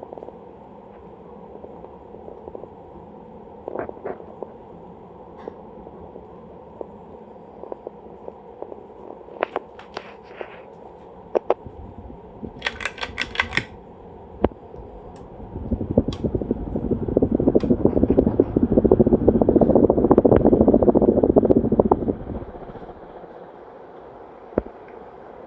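Hunter Low Profile 52-inch ceiling fan running, with a steady motor hum and scattered light clicks. A brief rattle comes about halfway through, and a louder rush of noise swells and fades in the last third.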